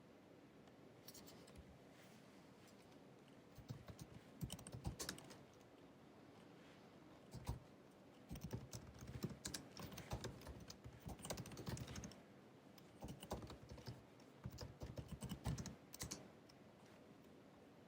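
Typing on the built-in scissor-switch keyboard of a 2019 16-inch MacBook Pro: runs of light key clicks in bursts, broken by pauses of a second or two.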